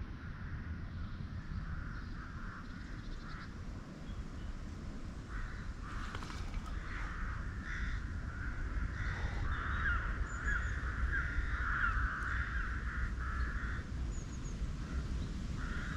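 Birds calling over and over, most densely in the second half, over a steady low rumble.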